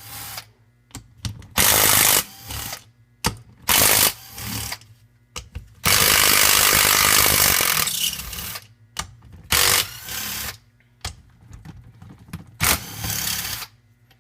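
Power driver running in five short bursts, the longest about two seconds, as it backs the bolts out of a 70cc engine's crankcase, with quieter clatter between the bursts.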